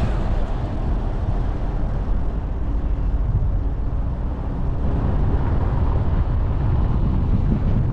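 A car driving at speed: steady road and wind noise with a low rumble.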